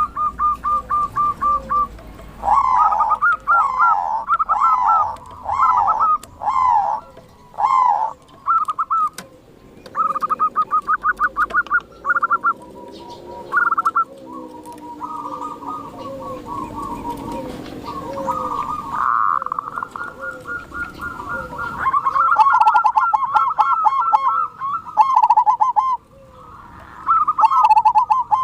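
Wild zebra doves (perkutut) calling: runs of rapid staccato cooing notes, repeated again and again, with other birds chirping alongside.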